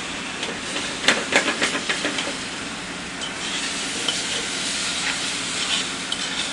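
Vinegar sizzling and steaming in a saucepan of hot melted brown sugar, a steady hiss, while a spoon stirs the pot. About a second in, the spoon knocks and scrapes against the pan a few times.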